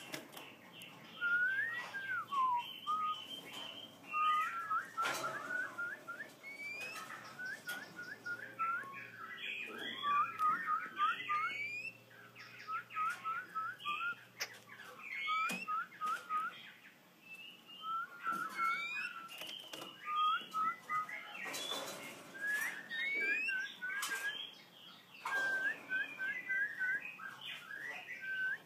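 Oriental magpie-robins singing: bursts of rapid, short whistled notes and chirps, with a few soft knocks in between.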